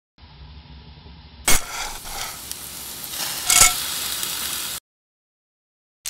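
Sizzling hiss like food frying, with two sharp metallic clinks, the first about a second and a half in and the second two seconds later. It begins muffled and quieter, turns brighter with the first clink, and cuts off abruptly near the end.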